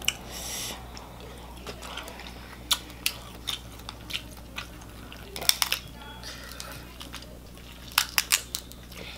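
Close, dry sounds of eating a seafood boil: scattered sharp clicks and cracks of shrimp shells being peeled by hand, with chewing in between.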